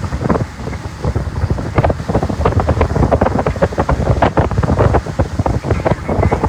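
Wind buffeting the microphone in a moving vehicle, an irregular rush and thudding over road noise.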